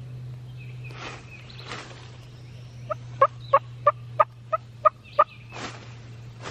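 Turkey calling: a run of eight short, evenly spaced yelping notes, about three a second, starting about three seconds in. A few soft rustles come before and after the run.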